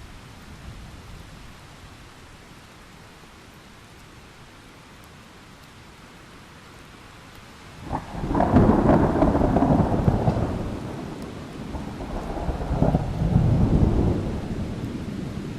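Thunderstorm: steady rain, then about halfway through a sharp crack of thunder opens into a loud rolling rumble that eases and swells a second time before dying away.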